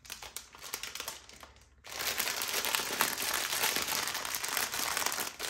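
Grocery packaging crinkling and rustling as it is handled: light rustles at first, then loud, continuous crinkling from about two seconds in.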